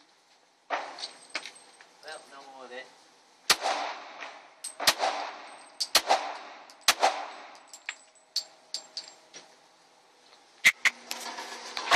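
Handgun shots at an indoor firing range, each crack trailing off in the room's echo: four shots roughly a second apart in the middle, then a couple more cracks near the end.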